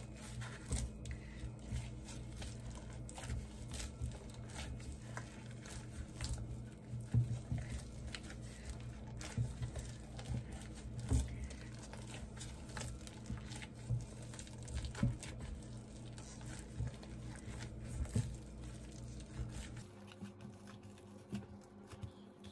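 A loose plastic glove crinkling and bread dough squelching as a hand kneads soft butter into sticky dough in a glass bowl: irregular soft squishes and crinkles. A steady low hum runs underneath and stops about two seconds before the end.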